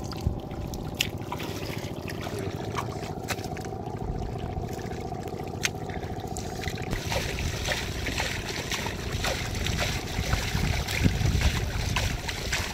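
Thin water trickling over wet mud, with many scattered small clicks and little splashes.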